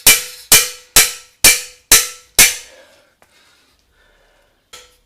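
Hammer blows on steel, driving a stuck steering-head bearing race out of a motorcycle frame: six sharp ringing metal strikes about two a second, then a pause and one more strike at the end.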